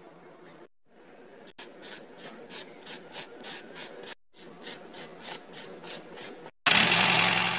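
Small hand brush sweeping straw and chaff across concrete in quick short strokes, about three a second, with a brief pause midway. Near the end a much louder steady whirring noise cuts in abruptly.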